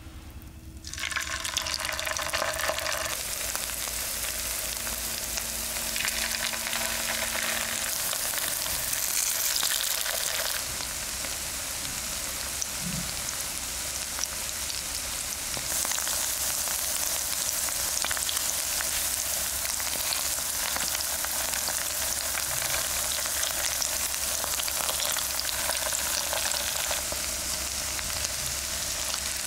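Vegetable patties of grated zucchini, potato, carrot and cheese sizzling as they shallow-fry in hot oil in a nonstick pan. The sizzle starts suddenly about a second in as the first patty goes into the oil, flares up in spurts over the next ten seconds or so as more are added, then settles into a steady frying hiss.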